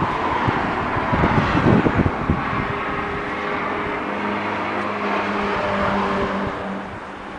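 A car passing on a road, a rush of tyre and engine noise with a steady engine hum that fades out shortly before the end. Wind buffets the microphone at the start.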